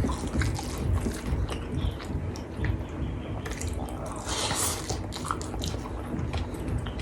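Close-miked wet chewing and mouth sounds of someone eating nasi Padang, with many small, sharp, wet clicks. A short hiss comes a little past four seconds in.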